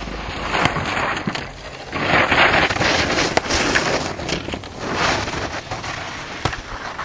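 Skis carving giant slalom turns on hard-packed snow: the edges scrape with a loud crackling hiss that swells with each turn, loudest about two to three seconds in.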